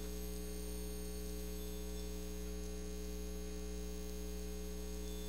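Steady electrical mains hum: a low, unchanging buzz with a stack of overtones above it.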